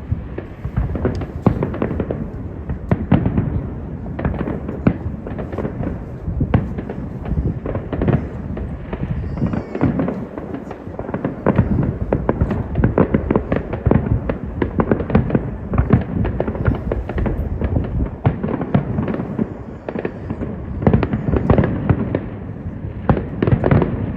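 Aerial fireworks shells bursting in a dense, continuous barrage, with several deep bangs a second overlapping one another along with crackling reports.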